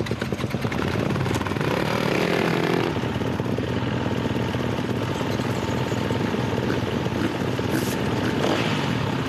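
Several dirt bike engines running together, with one revving up in pitch about two seconds in.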